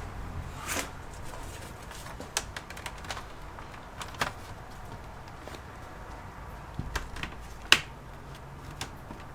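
Scattered light clicks and taps of small parts and tools being handled on an opened laptop, about six separate clicks with a sharper one about three quarters of the way through.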